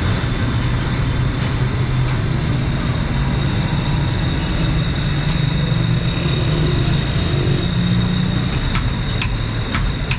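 A motor running steadily with a low hum and a thin high whine, with a few sharp taps near the end.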